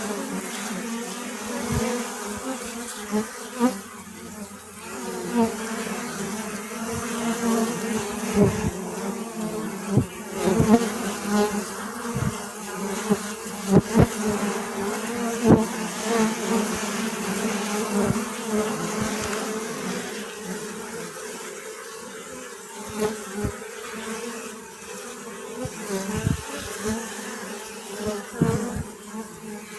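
Many bees buzzing together in a steady, low hum. Short sharp taps and brief louder buzzes are scattered through it.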